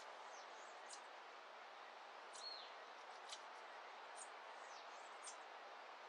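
Faint dawn ambience of scattered short, high bird chirps and peeps over a soft steady hiss, with one slightly longer arched call about two and a half seconds in.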